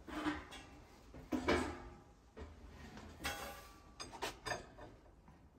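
Light knocks and clatters as parts of a steel barrel smoker are handled and set down on a wooden table, the loudest about one and a half seconds in, with a quick run of small clicks near the end.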